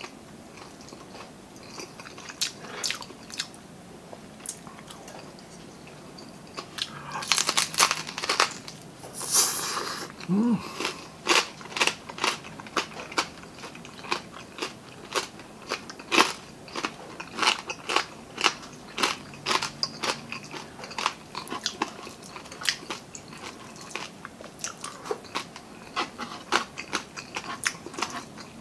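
Person eating crispy lechon kawali (deep-fried pork belly): softer chewing at first, then loud crunches of the crackling skin about seven to ten seconds in, followed by steady crunchy chewing at roughly three chews every two seconds.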